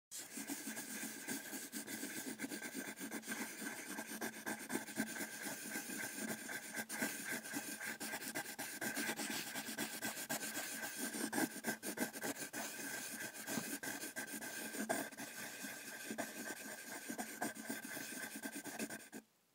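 HB graphite pencil scratching on paper as a drawing is sketched: a continuous rasp of quick strokes, with a faint steady tone underneath, that cuts off suddenly near the end.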